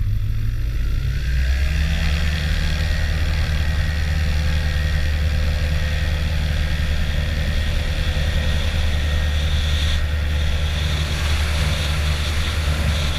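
Motor glider's piston engine and propeller heard from inside the cockpit, opening up to full power about a second in and then running steadily at takeoff power.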